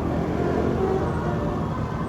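A bus engine running close by, steady, with road noise.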